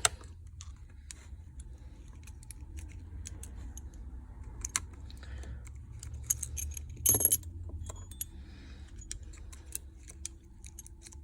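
Small clicks, taps and light metallic rattles of repair tools and parts being handled as the logic board is lifted out of an iPhone XR, with a sharper click about seven seconds in, over a low steady hum.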